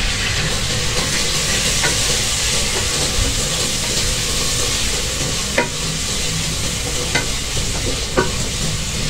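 Onions and chopped tomatoes sizzling steadily in hot oil in an aluminium pressure-cooker pot as they are stirred with a wooden spatula, with a few light clicks of the spatula against the pot.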